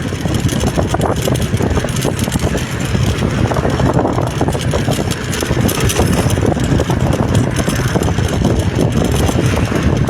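Steady, loud vehicle and road noise while travelling along a road, with wind buffeting the microphone.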